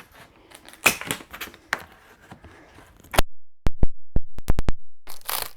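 Cardboard shipping box and packaging being handled: scattered knocks and clicks, a quick run of about six sharp clicks past the middle, then rustling of packaging near the end.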